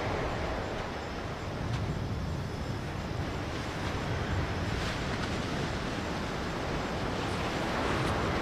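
Ocean surf washing onto a beach, with wind: a steady rumbling wash of noise that swells a little near the end.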